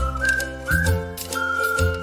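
Cheerful background music: a whistled melody gliding between notes over a steady bass line and light percussion, with the bass changing about once a second.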